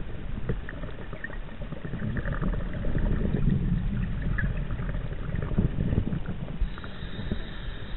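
Scuba diver's breathing heard underwater through a chest-mounted camera: a low bubbling rumble with crackling bubble clicks, swelling from about two to six seconds in as the diver exhales.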